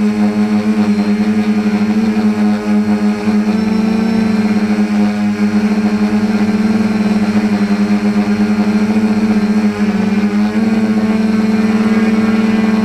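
Quadcopter's electric motors and propellers running with a steady, even-pitched buzz, heard from a camera mounted on the craft; the tone dips briefly about ten seconds in.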